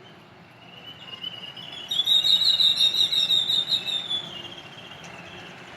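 A bird calling in one long rapid trill, about seven notes a second and high-pitched. It rises slightly in pitch as it swells, is loudest in the middle, then fades away.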